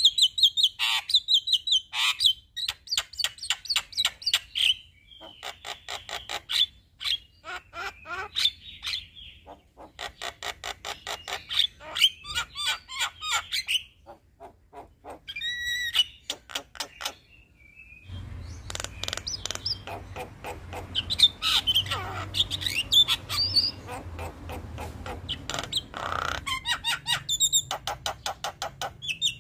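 Male Javan myna singing vigorously: long rolling runs of rapid clicking, rattling notes and harsh chatter, with a short clear whistle about halfway through.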